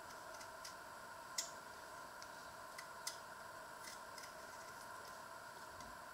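Potato being peeled by hand with a small paring knife: faint, scattered clicks and scrapes of the blade and the falling peel, with a sharper click about a second and a half in and another around three seconds in, over a steady background hum.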